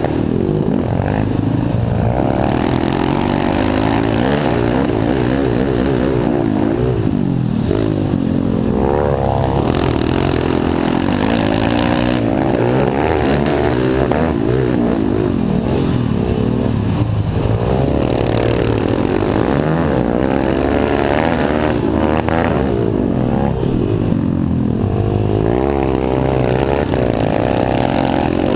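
Small dirt bike engine heard from on board, revving up and down again and again as the rider accelerates out of turns and backs off into them, with wind rush over it.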